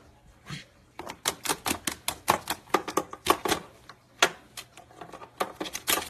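A caique parrot hopping about on a plastic game console and a game box, its feet and beak making a rapid, irregular run of sharp clicks and taps. The clicks start about a second in, come thick for a few seconds, then thin out.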